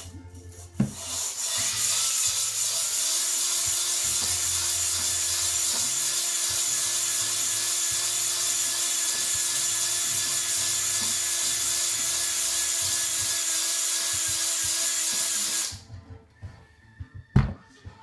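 Cordless drill spinning a coarse honing stone inside a Moto Morini 3½ cylinder bore, lubricated with diesel, to put a crosshatch finish on the freshly ground bore. It is a loud, steady rasping hiss that starts about a second in and stops abruptly after about fifteen seconds, followed by a couple of clicks.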